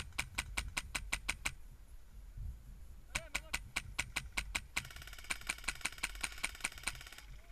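Airsoft rifle with a Polar Star compressed-air engine firing rapid strings of shots, about six or seven sharp cracks a second for the first second and a half. A slower string follows about three seconds in, then a faster continuous burst runs for about two seconds and stops just before the end.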